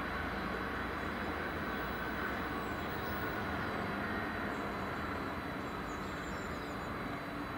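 Class 66 diesel-electric locomotive's two-stroke EMD V12 engine running steadily as it hauls a train of empty stone wagons towards the listener, with rail and wagon rumble underneath.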